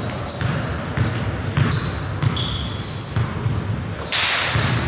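Basketball game on a hardwood gym floor: sneakers squeak over and over in short high squeals while the ball is dribbled in low thumps. A brief louder rush of noise comes a little after four seconds.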